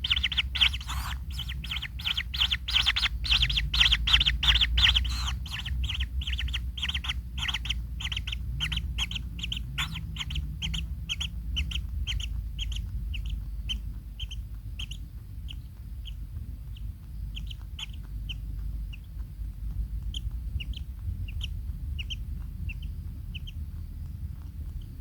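Kingfisher calling a fast series of sharp, repeated notes that gradually slows into spaced single notes, fading out after about twenty seconds, over a steady low rumble.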